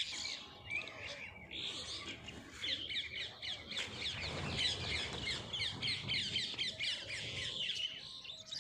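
Many small birds chirping at once, a dense chorus of quick, short, high chirps overlapping without pause, with a faint low rumble in the middle.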